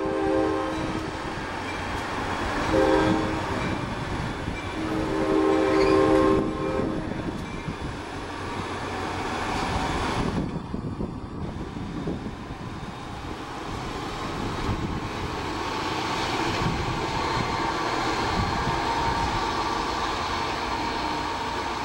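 NJ Transit diesel push-pull commuter train pulling away. Its locomotive's chime horn sounds three times: one blast ending just after the start, a short one about three seconds in, and a longer one about five seconds in. After that the locomotive's diesel engine and the rolling train keep running steadily.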